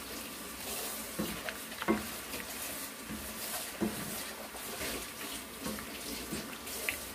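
Shrimp sizzling in oil in a nonstick frying pan while a spatula stirs them, with a few soft irregular knocks of the spatula against the pan.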